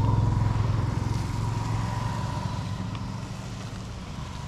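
Motorcycle engine running on the move, getting gradually quieter as it eases off.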